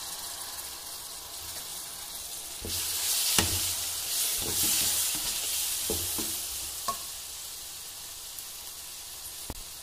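Onion-and-spice masala sizzling in hot mustard oil in a kadhai as garlic paste is stirred in with a steel ladle. The sizzle grows louder from about three seconds in while the paste is worked through, with a few clinks of the ladle against the pan.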